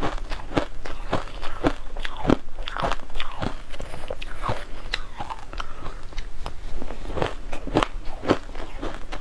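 Frozen purple shaved ice crunching and being chewed in the mouth, a steady run of sharp crunches a few times a second.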